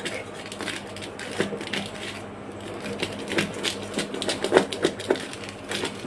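Knife blade scraping and clicking around the inside wall of a metal cake tin, with the tin shifting on the stone countertop, in irregular small scrapes and taps: the baked cake being loosened from the tin before it is turned out.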